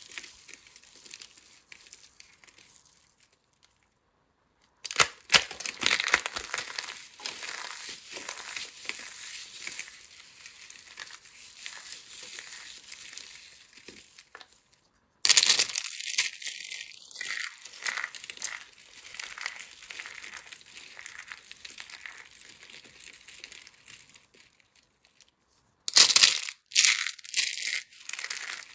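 Dry soap pieces crunching and crackling as they are crushed between the fingers: first glitter-coated soap box shards, then a soap rose of thin soap curls. The crushing comes in three stretches with short pauses between them, and a couple of short rising squeaks come with it in the later stretches.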